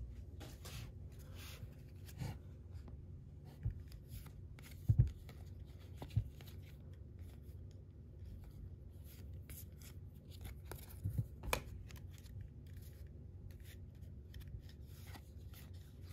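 Topps baseball cards being flipped through one at a time, each slid off the front of the stack: faint scraping of card stock with scattered taps, a few of them sharper.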